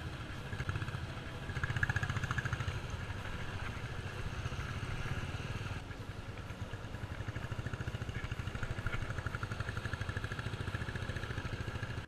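Bajaj Pulsar single-cylinder motorcycle engine running steadily with a fast, even pulse while the bike is ridden along a rough dirt road.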